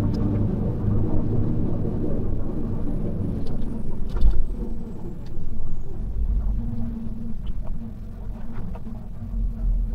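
Semi-truck running down the road: a steady low engine drone and road rumble, with a few faint clicks about four seconds in.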